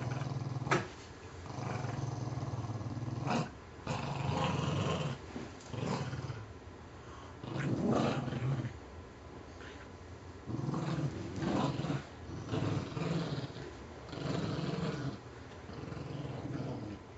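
Dogs play-growling over a tug-of-war toy: repeated low growls in bouts of a second or two, with short pauses between, and a sharp click about a second in.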